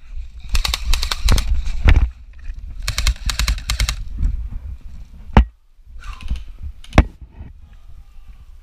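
Airsoft electric guns firing two rapid full-auto bursts, a longer one of about a second and a half and a shorter one of about a second, followed by two single sharp cracks about a second and a half apart.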